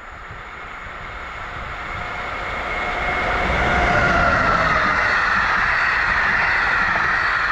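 Passenger train hauled by an EP07 electric locomotive passing at speed, wheels running on the rails. It grows steadily louder as it approaches, is loudest as the locomotive goes by about four seconds in, and the coaches keep rolling past after it.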